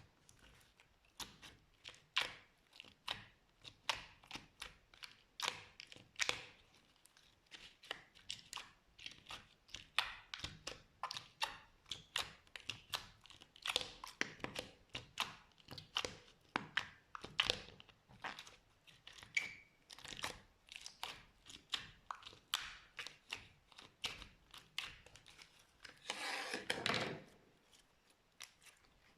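Slime being squished and pressed, giving an irregular run of short sticky clicks and small pops, with one longer, louder squelch near the end.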